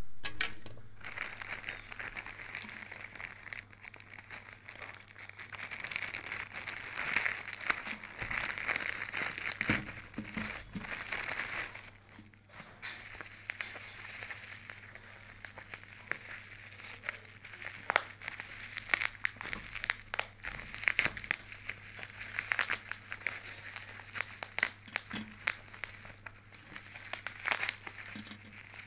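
Plastic packaging crinkling and crackling as it is handled: a plastic mailer bag opened and bubble wrap pulled off a boxed perfume bottle, with irregular sharp crackles throughout.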